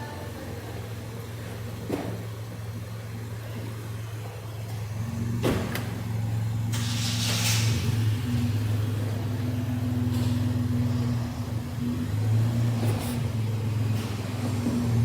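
Car engine idling with a steady low hum, broken by a couple of sharp clicks and a short hiss about seven seconds in.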